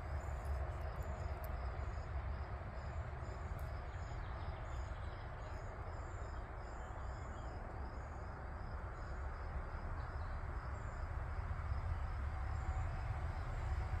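Outdoor ambience: insects chirping in short, evenly repeating high notes over a low, steady rumble and hiss. A few faint clicks come about a second in.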